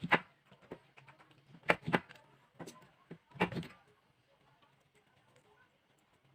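Workbench handling noise: about eight sharp clicks and knocks of small hard parts being handled, bunched in the first four seconds.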